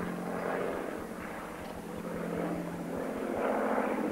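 De Havilland Mosquito, a twin-engined propeller aircraft with Rolls-Royce Merlin piston engines, flying over with a steady engine drone that swells near the end.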